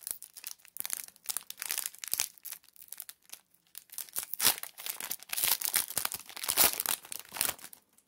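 Trading cards and foil pack wrappers being handled: irregular crinkling and rustling, busiest in the second half and stopping just before the end.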